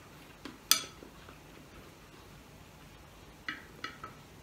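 A spoon clinking against a glass dish: two clicks under a second in, the second sharper, then three lighter clicks near the end.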